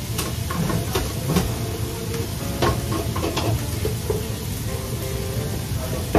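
Vegetables stir-frying in a wok: steady sizzling, with the sharp clack of a metal utensil against the pan every second or so, loudest at the very end, over a steady low rumble.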